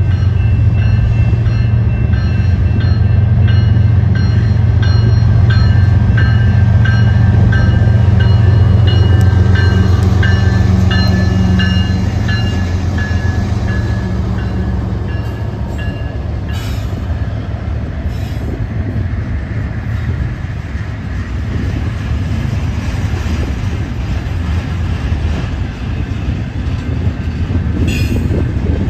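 Freight train passing close: the lead diesel-electric locomotives' engines drone loudly, with high ringing tones breaking in and out. After about 12 seconds the engine sound fades and the freight cars roll by with a steady rumble and rattle of wheels on rail.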